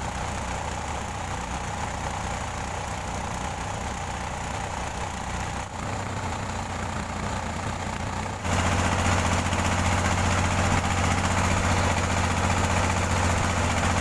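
Inboard engine of a wooden pompong motorboat running steadily under way, with water rushing along the hull. About eight and a half seconds in the engine becomes suddenly louder and fuller.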